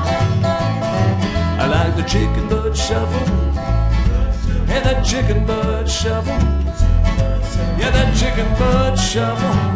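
Instrumental break of an up-tempo country swing shuffle: acoustic guitar, upright bass keeping a steady beat, and a lap-played resonator guitar with notes that slide in pitch.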